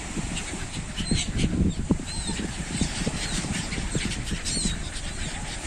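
Sea surf washing over a pebble beach, a steady low rush with many small clatters. Short, high, repeated bird chirps sound over it.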